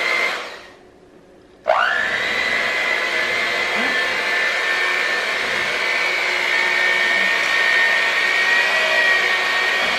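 Electric hand mixer running with its beaters in a bowl of cake batter, with a steady whine. It stops and winds down just after the start, then starts again under two seconds in and runs steadily.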